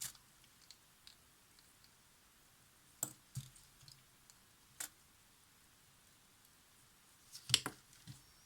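A few faint, sharp clicks and taps of small parts and tools being handled on a workbench, spaced out, with the loudest cluster near the end.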